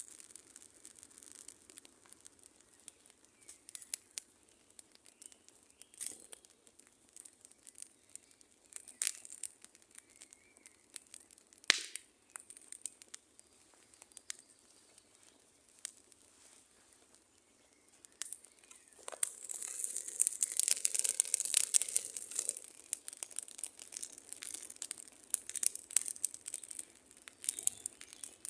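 Campfire crackling, with irregular sharp pops from the burning wood, and a louder stretch of dense hissing crackle for a few seconds about two-thirds of the way through.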